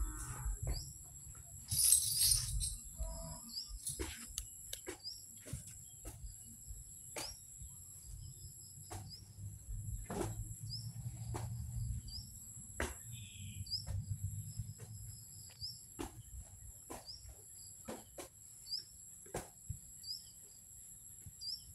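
Steady high-pitched drone of insects, with a short high chirp repeating about once a second, over a low rumble and scattered sharp knocks and clicks.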